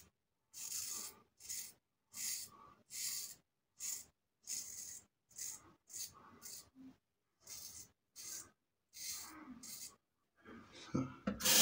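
Parker Variant adjustable safety razor with a Sputnik blade scraping through lathered stubble on the upper lip and chin during the first pass: about fourteen short strokes, one or two a second. Near the end a tap is turned on and water runs, louder than the strokes.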